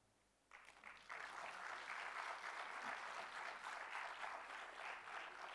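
Audience applauding, fairly faint, beginning about half a second in and holding steady as a dense patter of claps.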